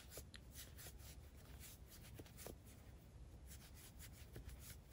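Near silence, with faint soft rubbing and scattered light ticks as a crochet hook works super bulky yarn.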